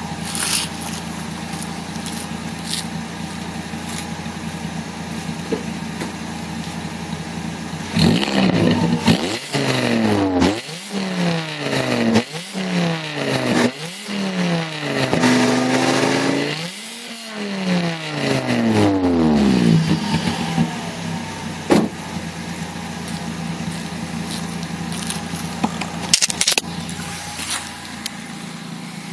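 Transversely mounted inline five-cylinder engine of a VW Golf III syncro heard at the tailpipe, idling steadily. About a third of the way in it is revved in a series of quick blips, one held briefly, then it falls back to a steady idle.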